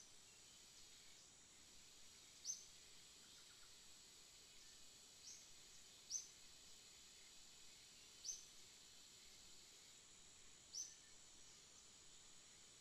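Faint outdoor ambience: a steady high insect drone, with a short high chirp every two to three seconds.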